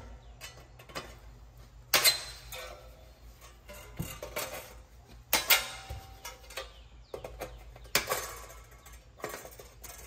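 Wire snips cutting the metal screen out of a furnace exhaust termination T: sharp metallic snips, the loudest about two, five and a half and eight seconds in, with lighter clicks and clinks of metal between.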